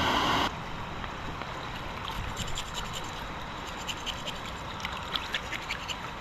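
River water running steadily, with scattered small clicks and scrapes of things being handled. A louder steady noise cuts off suddenly about half a second in.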